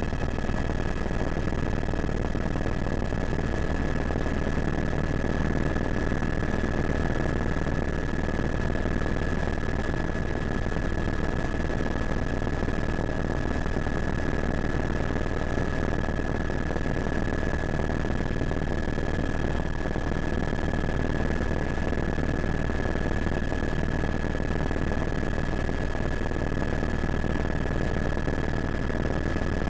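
Helicopter running steadily: a constant high turbine whine over a dense low drone of engine and rotor.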